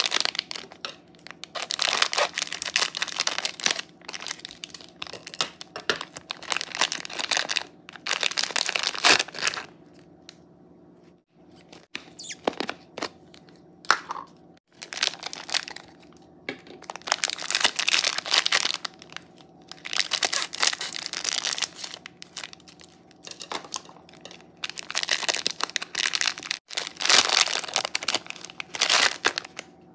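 Plastic wrap crinkling and tearing as it is peeled off logs of foam beads (floam), in repeated bursts with short pauses. Near the end, the foam beads crunch as hands press them into clear slime.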